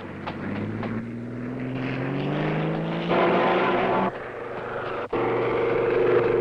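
Biplane's propeller engine running, its pitch climbing steadily over the first three seconds. It then jumps louder and breaks off abruptly twice, about four and five seconds in, as the soundtrack is cut.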